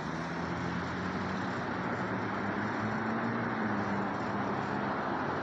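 Steady street noise with a motor vehicle engine running; its low hum rises a little in pitch partway through, then settles.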